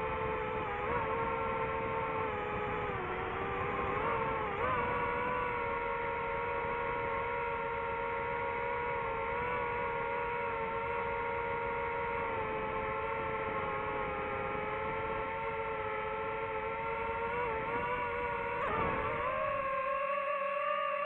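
DJI FPV drone's propellers and motors whining steadily, the pitch wavering briefly a few seconds in and dipping then stepping up near the end as the throttle changes, over a rush of airflow noise.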